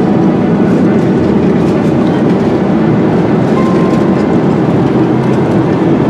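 Steady, low-pitched cabin noise of a jet airliner in flight, from its engines and the air streaming past the fuselage.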